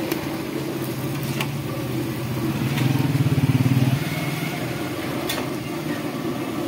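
A motor vehicle engine running nearby, swelling louder and pulsing rapidly for about a second near the middle, over the steady hiss of pakoras deep-frying in hot oil in an iron karahi. A few sharp metal clicks from the ladle against the pan.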